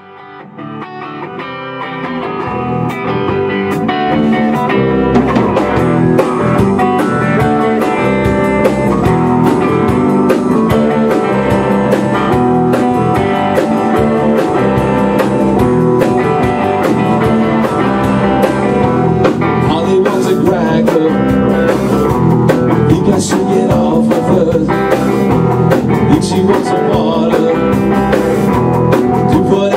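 A rock band playing together on electric guitars, bass guitar and a Tama drum kit. The music builds up in loudness over the first few seconds, then carries on steadily.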